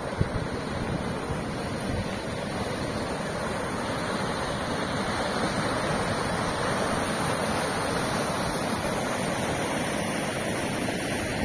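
Muddy floodwater rushing over rocks in a swollen stream, a steady noise of fast-flowing water.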